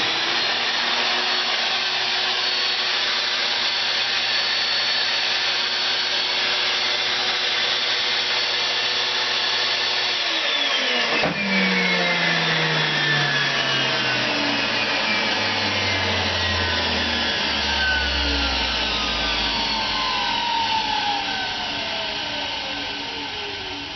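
Vintage 1996 Electrolux central vacuum power unit running at full speed with a steady whine and rush of air for about ten seconds. It then shuts off with a click and the motor winds down, its whine falling steadily in pitch and fading over the remaining dozen seconds.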